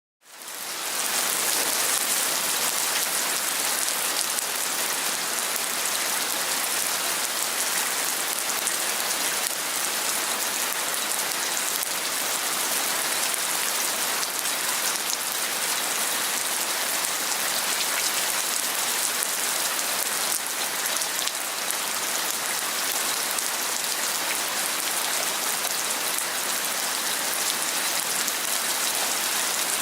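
Heavy rain falling steadily, a dense even hiss of drops on surfaces, fading in over the first second.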